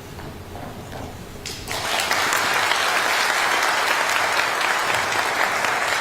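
Audience clapping, breaking out suddenly about a second and a half in and going on steadily.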